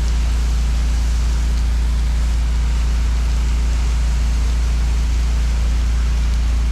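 Pressure washer engine running steadily at a constant speed, with the hiss of water spraying over it.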